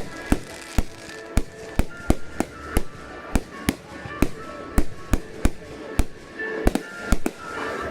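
Fireworks going off in a rapid, irregular string of sharp bangs, about two to three a second, with music playing underneath.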